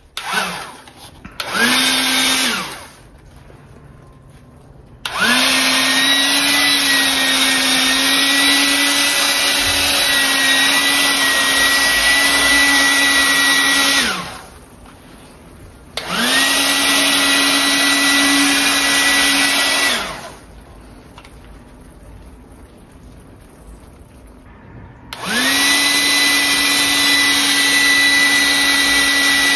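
Automatic bubble gun's small electric motor and fan whirring in four bursts. Each burst rises in pitch as the motor spins up, holds a steady whine, then drops as it stops: a short one about two seconds in, a long one of about nine seconds, one of about four seconds, and a last one starting near the end.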